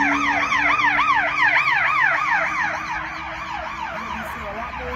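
Emergency vehicle siren in yelp mode, a fast rising-and-falling whoop about three times a second, loud at first and fading after about three seconds as it passes along the street.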